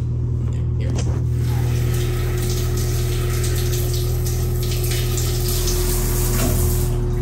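Shower spray hissing down onto a tiled stall, starting about a second in and running steadily, over a steady low hum.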